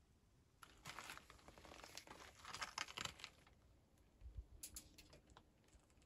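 Faint crinkling, rustling and clicking for about three seconds, then a few soft low knocks and a faint steady hum near the end.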